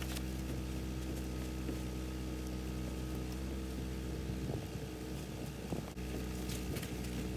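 Car engine idling steadily, with a brief rougher patch and a knock about six seconds in.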